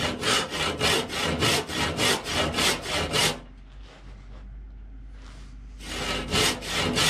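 Handsaw (scie égoïne) cutting into an oak rafter, with even strokes about three a second. The sawing pauses for a couple of seconds about three seconds in, then starts again near the end.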